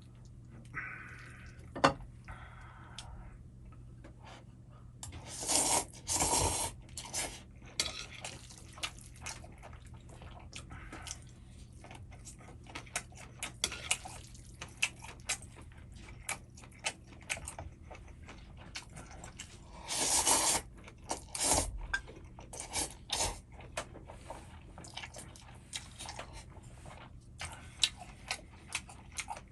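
Someone eating Chapagetti black-bean noodles: many light clicks and taps of utensils against the bowl, with chewing, and a few louder half-second to one-second noodle slurps, the biggest about six seconds and about twenty seconds in. A steady low hum runs underneath.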